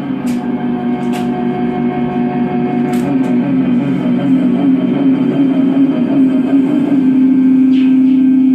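MFOS DIY analog synthesizers droning: several steady tones with a fast warble, slowly growing louder, with a few short clicks in the first three seconds. About seven seconds in the warble stops and one steady drone holds.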